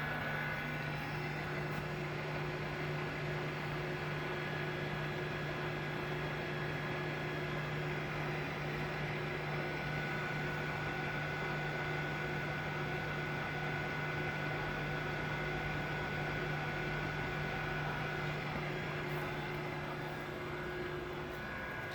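Mori-Seiki MH-3000 engine lathe running under power: a steady hum with a faint, constant whine at fixed pitch.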